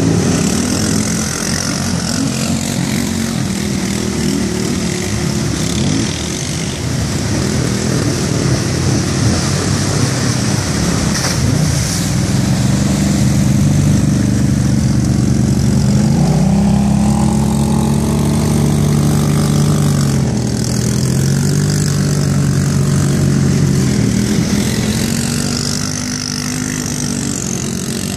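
Several ATV engines revving up and down as the quads wheelie through shallow lake water, over a steady hiss of churning, spraying water.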